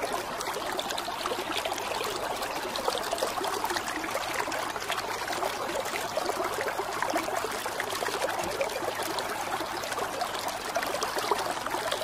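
Water trickling and bubbling steadily, a continuous patter of small splashes and drips.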